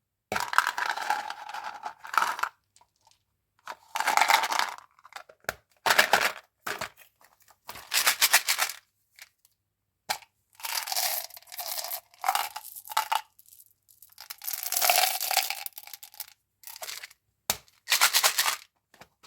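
Chewing gum packaging being torn open and crinkled by hand, in about eight short bursts with silent gaps between them.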